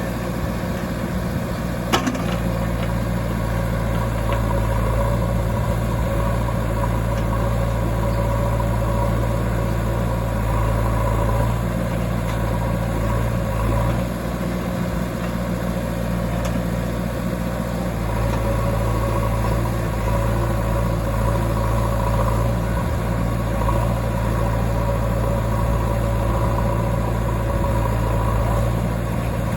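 Heavy diesel engine running steadily, with one sharp knock about two seconds in.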